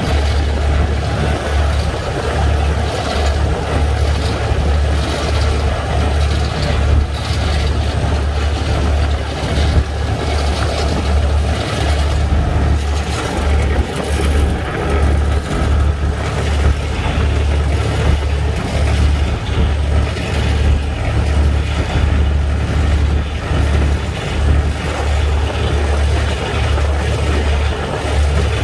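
Steady low engine drone and road noise of a moving road vehicle, heard from inside the cabin while driving.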